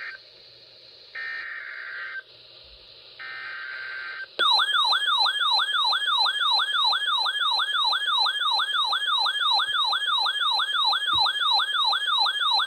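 NOAA Weather Radio Emergency Alert System broadcast: one-second bursts of SAME digital header data, a harsh two-tone buzz, with second-long gaps. About four seconds in, a loud warbling alert tone starts, sweeping down in pitch about three to four times a second, signalling a warning.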